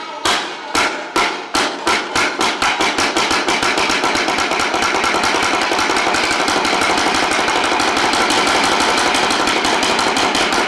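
Kabuki wooden clappers beating out sharp clacks that speed up from about two a second into a fast, continuous roll.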